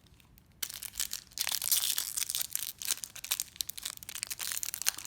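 A trading-card pack wrapper crinkling and crackling as it is handled, starting about half a second in and going on in quick irregular crackles.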